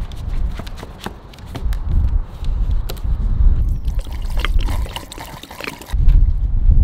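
Petrol and two-stroke oil sloshing in a plastic jerry can as it is shaken, with knocks from the can. About three and a half seconds in, the fuel mix pours from the can's spout into a plastic funnel. Near the end a steady low rumble takes over.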